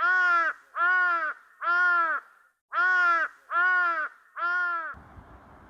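A crow cawing six times in two sets of three, each caw about half a second long. A faint hiss remains after the last caw.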